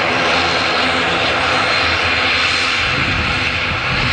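Jet airliner engines running, a steady loud rush of noise.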